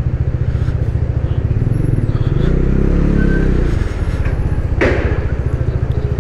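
Motorcycle engine running at low speed, a steady low pulsing that swells for a second or so around the middle. A short hiss comes about five seconds in.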